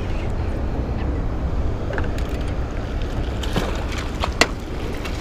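Steady low rumble of wind on the microphone over moving water, with a few short sharp clicks in the second half, the loudest about four and a half seconds in.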